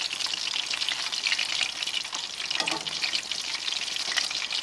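Panko-breaded mangrove snapper fillets shallow-frying in hot oil in a pan, with a steady, dense crackling sizzle as they are turned over.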